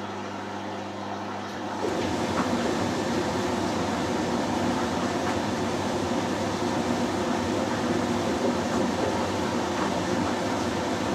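LG Direct Drive front-loading washing machine during its first interim spin. A steady low hum, then about two seconds in the drum starts turning and a louder, steady churning of the wet load takes over.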